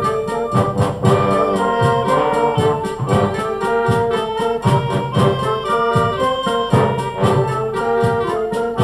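Brass band music: trumpets and trombones play sustained melody notes over a steady beat of drum or cymbal strokes and low bass notes.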